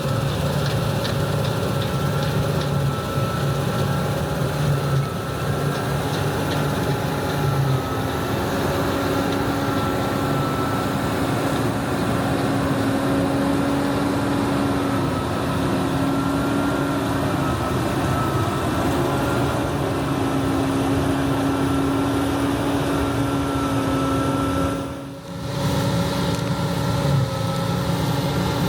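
John Deere 9610 walker combine running steadily while harvesting wheat: a constant machine drone with a few steady humming tones that waver slightly in pitch. It briefly drops out about 25 seconds in.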